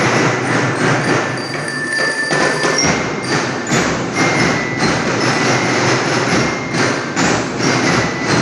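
School marching band playing: drums beating a steady rhythm, with bright metal bell notes ringing over them.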